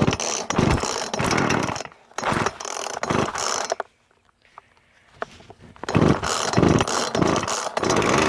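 Poulan two-stroke chainsaw being pull-started on choke: it fires and runs for a second or two, cuts out, fires again briefly and dies. After a pause of about two seconds it catches again and keeps running.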